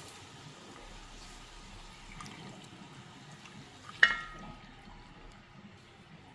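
Broth poured from a measuring cup into a hot enameled cast-iron Dutch oven over pork tenderloin, with a faint hiss from the hot pot. About four seconds in, the cup strikes the pot's rim with one sharp ringing clink that dies away quickly.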